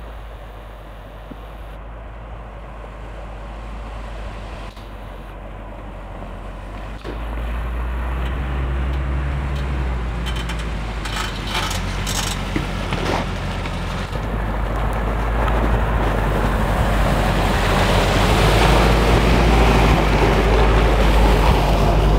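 UAZ off-roader's engine running as it drives through slush and ruts on a snowy track, getting steadily louder as it approaches. The engine note rises about seven seconds in, and a few knocks come between about ten and twelve seconds in.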